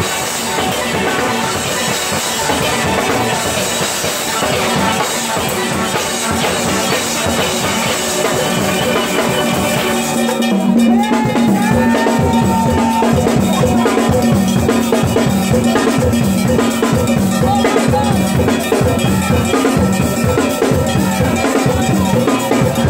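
Steel orchestra playing live, many steel pans struck with rubber-tipped sticks over a steady drum beat. About ten seconds in, the high end thins and the low drum beat becomes heavier.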